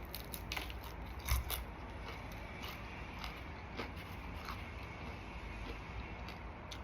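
A person chewing crispy battered fried food, with scattered small crunches and one sharper crunch about a second and a half in.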